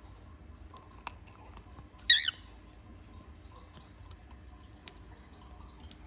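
Young cockatiel giving one short, loud, warbling squawk about two seconds in, with a few faint clicks of its beak working at seeds before and after.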